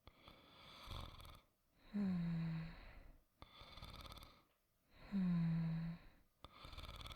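A person snoring softly in a steady rhythm, acted as voicework: a buzzy snore on each breath in, twice, each answered by a breathy exhale, one full breath about every three seconds.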